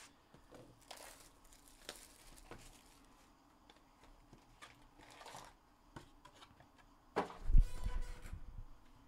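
Hands opening a cardboard trading-card hobby box: soft rustling, scraping and tearing, then a heavier thump with rustling about seven and a half seconds in as the packs are set down on the table.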